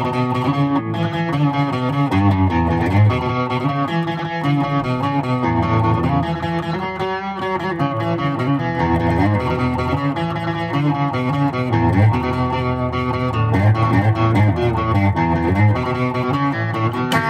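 Electric guitar riff played on a Gibson ES-330 hollow-body with P-90 pickups: a continuous run of picked notes, low bass-string notes mixed with higher lines.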